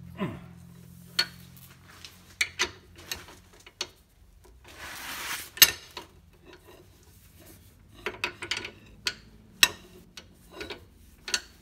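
Irregular metal clinks and knocks of a socket and wrench being worked on a car's rear suspension bolt, with gloves rubbing on the tools and a short rustling scrape about five seconds in.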